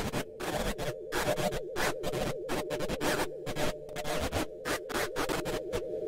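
Arturia ARP 2600 synthesizer patch playing rapid, irregular bursts of hissing noise, chopped on and off several times a second over a steady mid-pitched tone.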